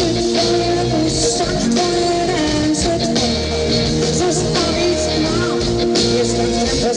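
Live rock band playing, recorded amplified through the venue's sound system: held keyboard and guitar notes over bass and drums with steady cymbals, and a woman singing.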